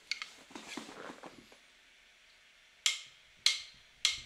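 Faint clatter of small household objects being handled, then a short lull, then three sharp, evenly spaced taps about half a second apart.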